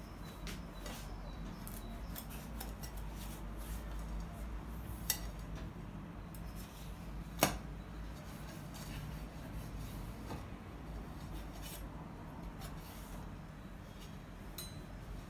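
Light clicks and clinks of cutlery and dishes over a low steady hum, with two sharper clicks about five and seven and a half seconds in.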